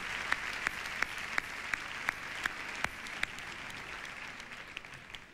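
Audience applauding, with individual claps standing out, dying away near the end.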